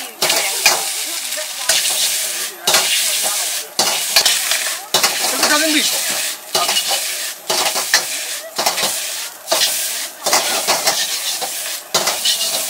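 Egg fried rice stir-frying in a wok: loud steady sizzling, with the metal ladle scraping and clanking against the wok, the sizzle dipping briefly about once a second.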